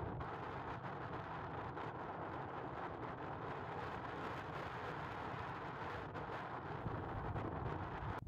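Strong wind buffeting the microphone: a steady low rumble under a rushing hiss.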